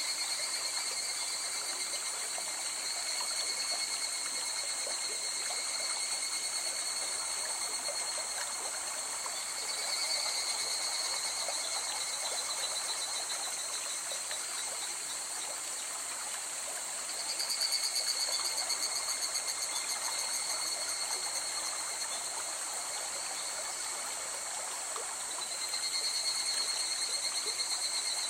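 A river running steadily, with a high, fast-pulsing animal trill that sounds in four bouts, each two to three seconds long and seven to eight seconds apart.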